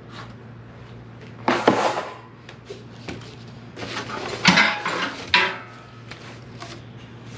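Cardboard packaging being shifted and pulled about, with small metal parts clinking in their boxes, as parts are taken out of a barrel smoker's shipping carton. There is one burst of handling noise about a second and a half in, and a longer run from about four to five and a half seconds in, with a sharp clink in the middle of it.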